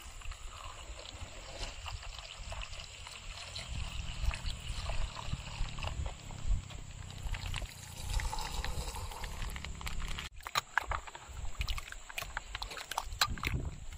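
Milk poured over ice cubes in a hollowed-out watermelon, then a steel spoon stirring and clicking against the ice, with a low rumble of wind on the microphone.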